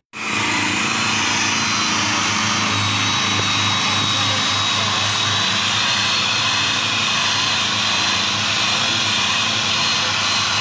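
Loud, steady machine noise with a high, slightly wavering whine, cutting in abruptly after a moment of silence.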